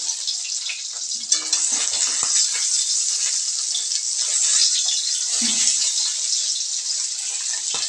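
Pieces of fish frying in hot oil in a kadai, a steady high sizzle with the oil spattering. There are a few knocks against the pan about one to two seconds in.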